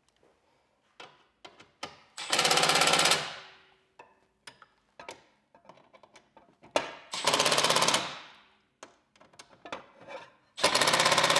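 Impact driver running screws tight in three bursts of about a second each, with a fast hammering rattle, and small clicks of handling in between.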